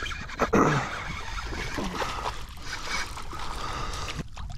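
Water splashing and sloshing with rustling grass as a small striped bass is pulled through shallow water and marsh grass at the angler's feet, with a louder splashy moment about half a second in.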